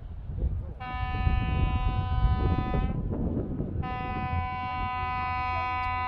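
Norwegian Getaway cruise ship's horn sounding two long, steady blasts of about two seconds each, about a second apart, over a low rumble.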